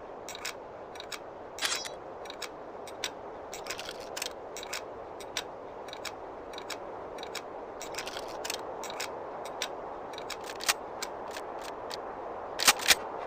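Mechanism of an 1860 Henry lever-action rifle being handled: irregular sharp metallic clicks and light scrapes, a few seconds apart, over a steady hiss, with a quick pair of louder clicks near the end.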